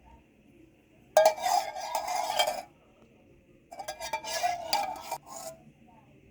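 A metal kitchen utensil scraping and clinking against a dish in two bouts of about a second and a half each.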